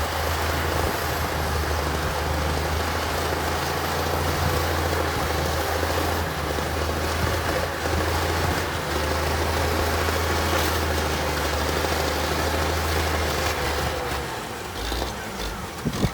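Heavy earthmoving machine's diesel engine running steadily with a low drone, which drops away near the end.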